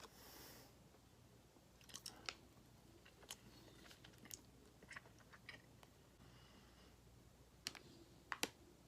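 Faint chewing, with scattered sharp crunching clicks of a mouthful of food over a low steady hum.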